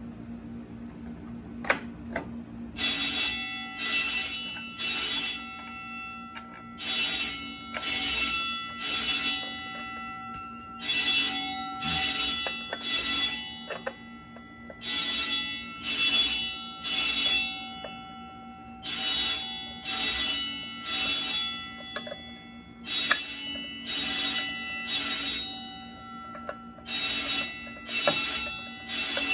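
Pyrotronics fire alarm bell ringing in the temporal-three evacuation pattern: three half-second rings, a pause, and again, over and over. A steady low hum runs underneath, and the ringing starts about three seconds in after a few clicks.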